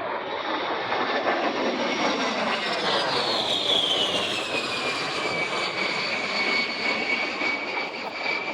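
A-10 Thunderbolt II's twin TF34 turbofan engines on a pass: a steady jet rush with a high whine that drops in pitch about three seconds in as the aircraft goes by, then holds at the lower pitch.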